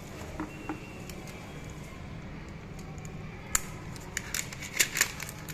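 Crinkling and clicking of a smartphone's plastic protective wrap and cardboard box as the phone is lifted out and unwrapped by hand. There are a couple of light clicks early on, a sharp click about three and a half seconds in, and a run of crackling near the end, over a steady low hum.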